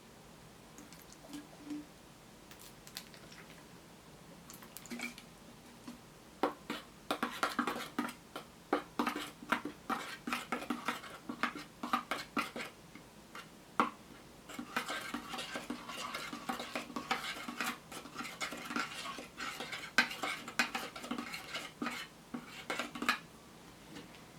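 A utensil clinking and scraping against a small dish in quick, rapid strokes, as when stirring a mixture. The clinking comes in two long spells with a brief pause between them.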